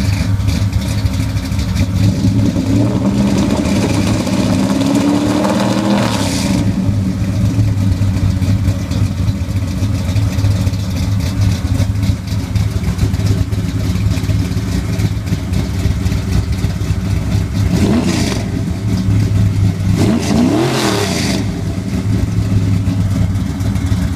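1967 Chevy Nova's 434-cubic-inch stroker small-block V8 idling through its exhaust, revved up slowly for a few seconds early on and dropping back about six seconds in, then blipped twice in quick short revs later on.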